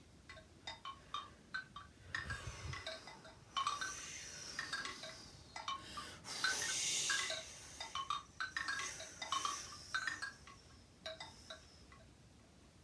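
Metal sound bars struck in scattered ringing notes, played as a sound picture of the wind. A shaken jingling rush builds in the middle and peaks a little past halfway, then the struck notes thin out near the end.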